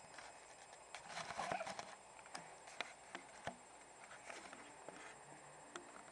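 Model train running on its track, giving irregular light clicks and clacks with a denser clatter about one to two seconds in.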